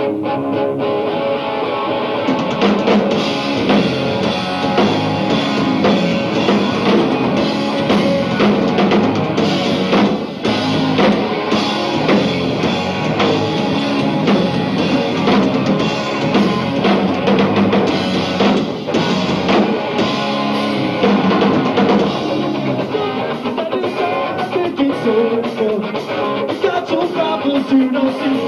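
Punk rock band playing live: electric guitars with a drum kit, the drums and low end coming in about two seconds in and the full band playing on from there.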